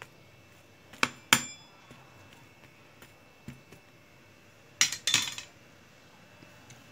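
Metal spatula clinking against a baking tray while eggplant and potato strips are pushed into place: two sharp clinks about a second in, the second ringing briefly, then a short clatter of strikes near five seconds in.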